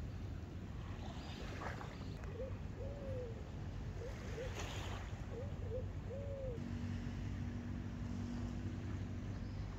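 Beach ambience: a steady low rumble of wind and surf. A few short calls rise and fall in the middle, and a steady hum sounds for about three seconds near the end.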